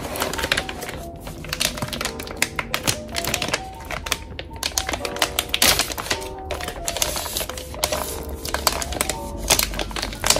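Clear plastic packaging bag crinkling and crackling in quick, irregular clicks as it is pulled open and handled, over soft background music.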